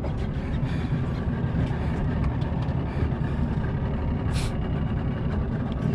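Boat engine running steadily, a low rumble, while the boat follows a large hooked fish.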